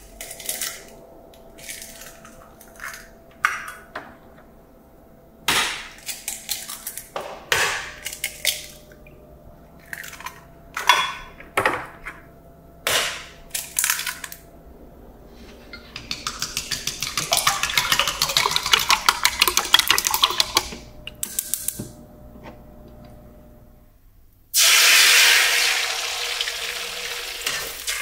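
Eggs cracked one after another against a glass measuring jug, shells tapping and clicking on the glass. Then a fast run of clicks as the eggs are beaten in the jug. About three-quarters of the way through, a sudden loud sizzle starts as the beaten eggs hit the hot oiled wok.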